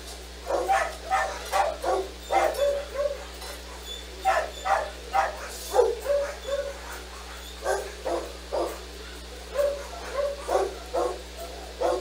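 Dogs barking in quick runs of short barks with brief pauses between the runs.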